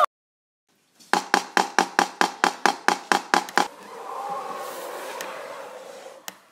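About a second of silence, then a quick, even run of about fourteen sharp knocks, roughly five a second, each with a short ringing tone. After them comes a fainter steady hum, with a single click near the end.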